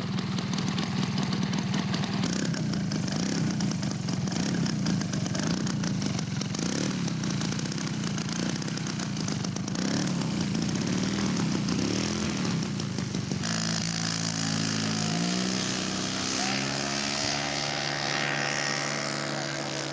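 Engine of a scale model airplane running steadily, its pitch wavering slightly as it flies. About two-thirds of the way through the sound switches abruptly to a different engine note, which rises briefly in pitch and then holds steady.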